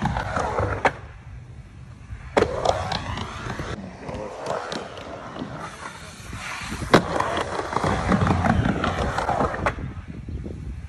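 Skateboard wheels rolling fast over a Skatelite-surfaced mega ramp, a rolling rumble broken by sharp clacks of the board, the loudest about seven seconds in. The sound breaks off and restarts several times where separate runs are spliced together.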